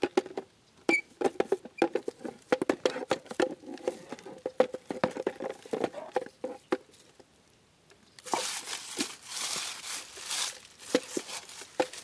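Footsteps crunching through dry leaves, twigs and pine needles, with many short snaps and crackles. About eight seconds in, a denser rustle of brush for two or three seconds.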